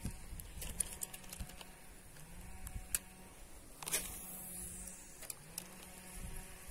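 Fishing reel being cranked to retrieve a lure: a faint, intermittent mechanical whir with scattered sharp clicks, the loudest about four seconds in.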